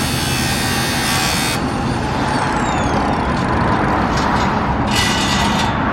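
Angle grinder cutting through a bicycle chain. A loud hissing grind drops to the grinder's steady free-running whine about a second and a half in, then bites briefly again near the end.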